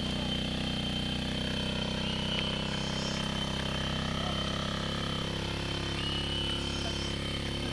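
A small engine running steadily at an even pitch, with a steady high-pitched tone above it.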